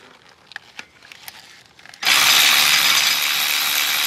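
A few faint clicks, then about two seconds in a power ratchet starts suddenly and runs steadily, spinning off a 13 mm nut that holds the coil-pack plate.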